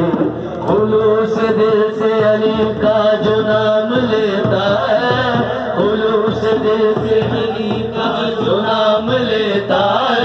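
Sufi devotional chant (nasheed) sung by a man through a microphone, with long held notes, over daf frame drums and a small hand drum keeping a steady beat.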